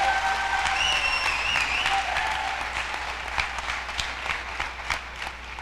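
Audience applauding, with a few drawn-out cheers over the first two seconds. The clapping then thins to scattered single claps near the end.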